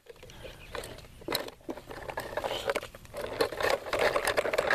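Toy garbage truck dumping its load: small cardboard boxes and bags of trash clatter and scrape out of the tipped plastic body onto pavement. From about three seconds in there is a steady buzz with rapid rattling clicks.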